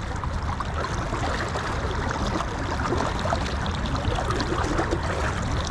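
River water rushing and splashing around a large barbel held on the line at the surface, a steady churning with a low rumble underneath.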